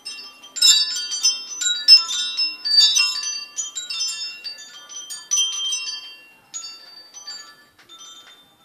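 Wind chime tubes jangling as a cat bats the chime's hanging sail, a dense flurry of struck, ringing notes that thins to a few scattered tings after about six seconds.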